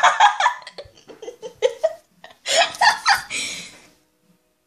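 A person laughing close to the microphone in breathy giggling bursts, one at the start and a longer one about two and a half seconds in, with a short one between.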